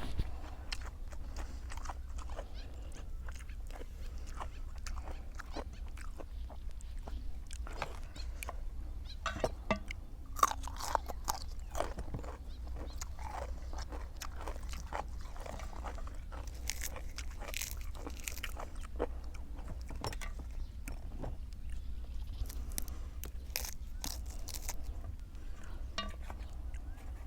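Close-miked eating: chewing and crunching, with many small irregular clicks and crackles over a steady low hum.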